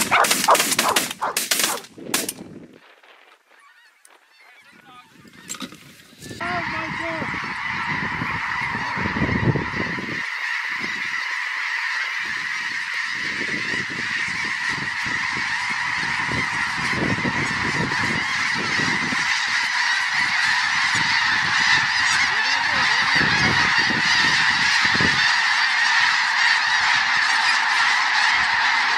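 A quick string of shotgun shots in the first two seconds, then a lull. From about six seconds in, a dense, steady din of many snow geese calling at once, a big flock's honking chatter.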